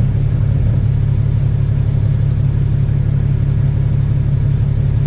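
Heavy rotator tow truck's diesel engine running steadily, a low even drone heard from inside the cab.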